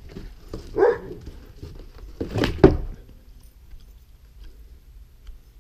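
A dog barking: one bark about a second in, then two sharper, louder barks close together about two and a half seconds in.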